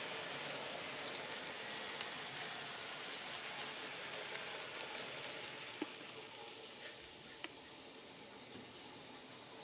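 Kato N-scale SD70MAC model locomotive running on the track after being throttled down: a faint, steady hiss of motor and wheels with a few light clicks, easing off slightly as it slows.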